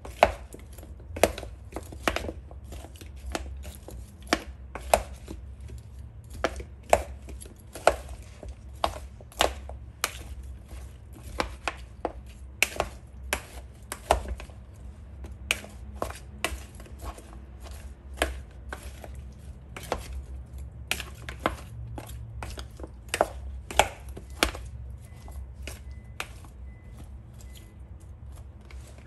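Spoon stirring and tossing cauliflower florets in a plastic mixing bowl, coating them in sauce: irregular clacks and knocks of the spoon and florets against the bowl, about one or two a second.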